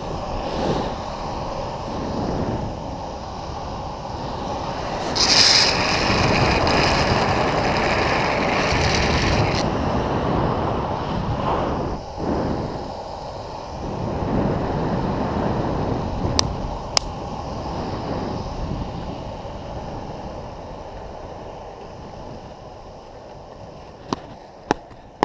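Longboard rolling fast downhill on asphalt: wheels rumbling, with wind rushing over the camera microphone. A louder hissing stretch comes about five to ten seconds in, and the noise fades as the board slows near the end, where a few sharp clicks sound.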